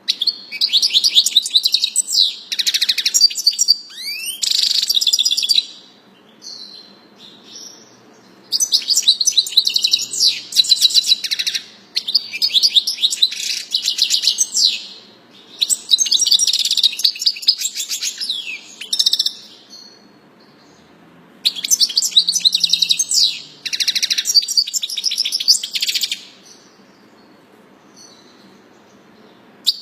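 A songbird singing in several long bursts of rapid trills and whistled notes, each a few seconds long, with pauses of two or three seconds between them.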